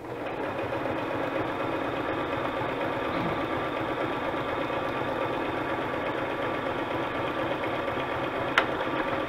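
Electric sewing machine running at a steady speed, stitching a pocket into a paper tag. There is one sharp click near the end.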